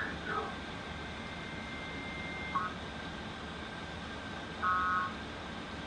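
Electronic beeps over steady hiss and a faint high-pitched whine: a brief blip about two and a half seconds in, then a half-second multi-tone beep near the end.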